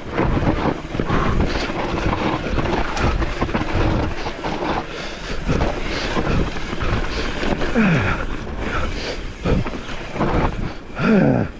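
Wind buffeting the microphone of a mountain bike's on-board camera, mixed with the rush of tyres on a rough trail and frequent knocks and rattles from the bike over bumps. A few short falling tones sound near the end.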